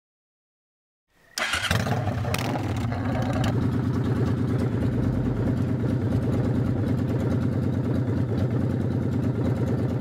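A motorcycle engine starts about a second in, catching almost at once, then runs at a steady idle.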